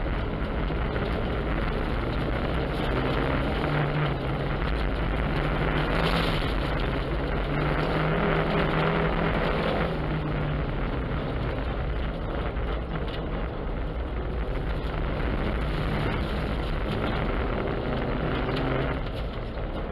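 An Opel's engine under load, heard from inside the cabin while it drives through deep snow, with a steady rush of tyres and snow underneath. The engine pulls hardest in the first half, eases off about halfway through, and eases again near the end.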